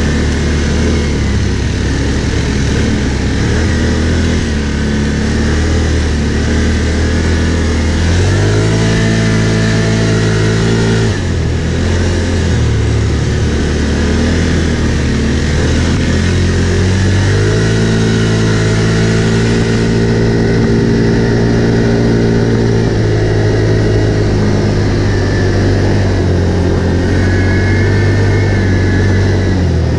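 Can-Am ATV's V-twin engine running under throttle while being ridden over rough ground. Its pitch rises and holds higher twice, for a few seconds about eight seconds in and again for several seconds from about seventeen seconds, then settles back lower.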